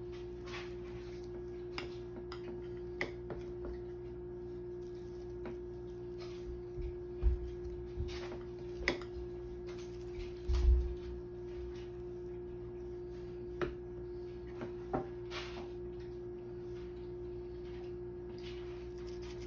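Metal spoons scraping and clinking against ceramic bowls and tapping on plastic wrap as frosting is spooned out, in scattered light clicks with a couple of dull thumps about seven and eleven seconds in. A steady low hum runs underneath.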